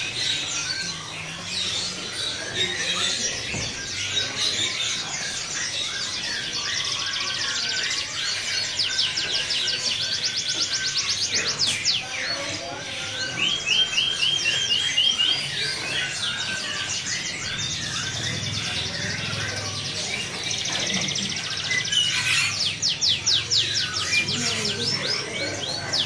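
Domestic canary singing a long, unbroken song of fast trills and chirps, with a run of evenly repeated notes partway through.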